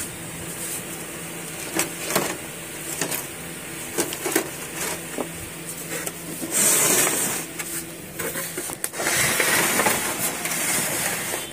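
Handling noise: scattered clicks and two longer stretches of rustling, about six and nine seconds in, over a steady low hum.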